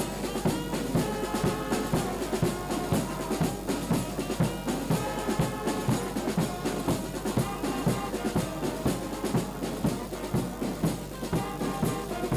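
Brass band music with drums, horns playing held melodic lines over a steady beat.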